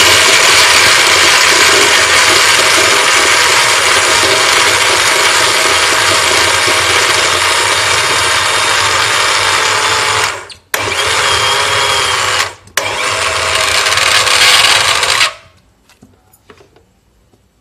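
Electric blender running hard, grinding fried peanuts and chillies into a smooth paste for satay peanut sauce. It cuts out briefly twice, then stops about fifteen seconds in.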